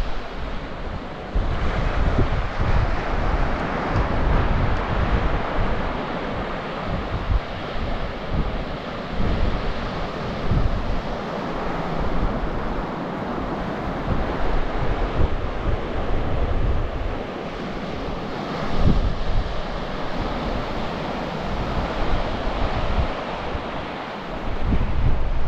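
Rough surf breaking and washing up the beach, with strong gusty wind buffeting the microphone in uneven rumbling gusts.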